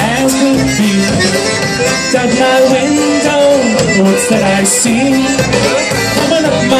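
Live polka band playing an instrumental passage, with fiddle and accordion.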